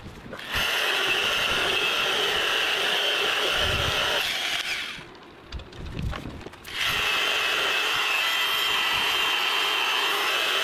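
Electric polisher with a lamb's wool pad running at low speed, buffing compound into boat gelcoat with a steady whine. It runs for about four seconds, stops for about two seconds, then starts again.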